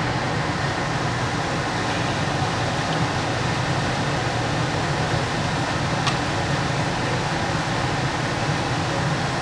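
Industrial parts washer running, a steady machine noise with a low hum, and a single faint click about six seconds in.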